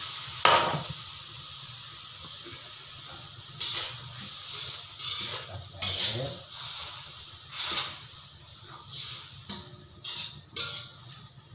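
A hot wok of squid stir-fry hissing and sizzling just after water has been poured in, the hiss slowly dying down as the water heats. A metal spatula scrapes and knocks against the wok several times, sharpest about half a second in.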